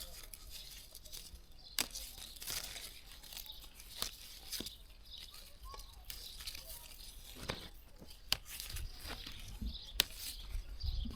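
Leaves rustling with scattered sharp snaps and clicks as fruit is picked by hand from a tree.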